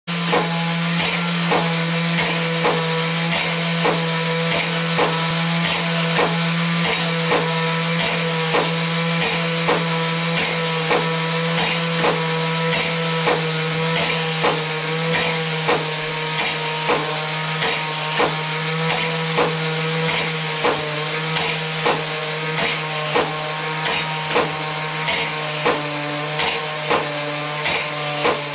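Roullet & Decamps bear drummer automaton running: its mechanism hums steadily while its paws strike the drum and cymbal in an even beat, about three strikes every two seconds.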